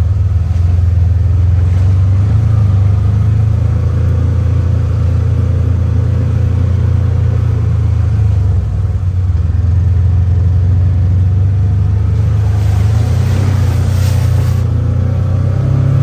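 A road vehicle driving, with a steady low engine and road rumble and a short rush of hiss about thirteen seconds in.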